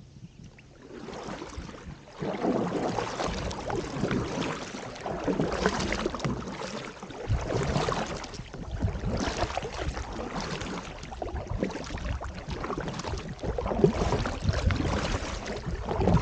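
Kayak paddle strokes: the double blades dipping and splashing into the river on alternating sides, in swells every second or two, starting about two seconds in.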